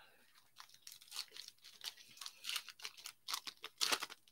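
Foil wrapper of an Upper Deck hockey card pack being torn open by hand: a run of irregular crackles and rips, loudest just before the end, with cards rustling as they are handled.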